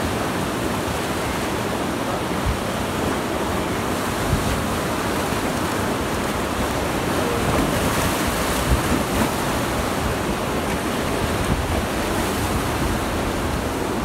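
Rushing white water of river rapids around an inflatable raft, a steady roar of water with wind buffeting the microphone.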